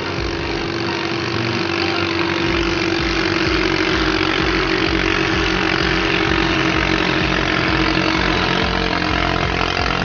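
Katinting longtail boat engine running hard: a loud, steady engine note that builds slightly over the first few seconds.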